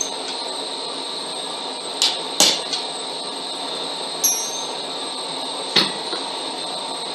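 A hammer strikes red-hot steel bar on an anvil four times: two blows close together about two seconds in, one about four seconds in that leaves a brief ring, and one about six seconds in. A steady hiss runs underneath.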